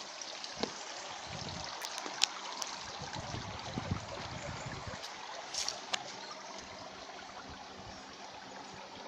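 Steady sound of water trickling and splashing, with a few sharp clicks and a faint steady hum underneath.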